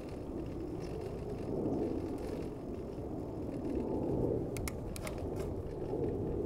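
Steady street and riding noise from a moving bicycle: a rumble of traffic and tyres that swells and eases, with a handful of short clicks or rattles around five seconds in.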